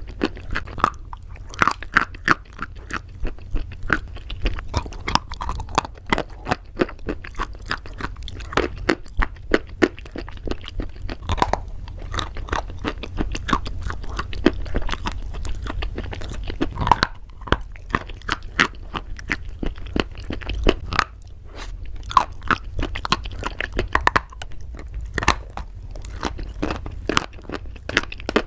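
Close-up chewing of crunchy pasta: rapid, sharp crunches one after another, with short breaks between mouthfuls.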